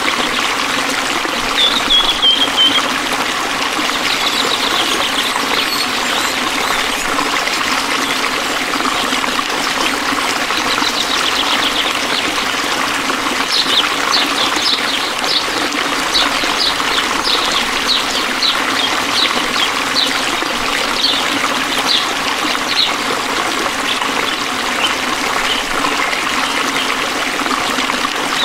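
Steady trickling and gurgling of a small stream, with high chirping animal calls over it: one brief call about two seconds in, and a run of short repeated chirps, about two to three a second, from about halfway through that thins out near the end.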